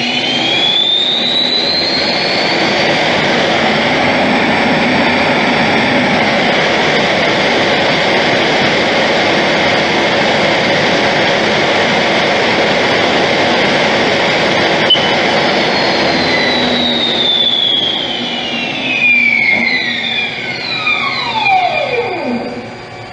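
Haas SL-40T CNC lathe spindle with its 15-inch three-jaw chuck finishing a spin-up, its whine rising in pitch over the first few seconds. It then runs steadily at speed and, after a click about two-thirds of the way in, spins down to a stop, the whine falling in pitch.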